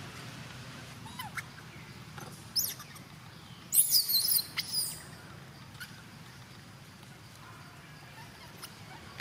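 Baby monkey squealing in high, wavering squeaks: a short one about two and a half seconds in, then a louder run of several about four seconds in.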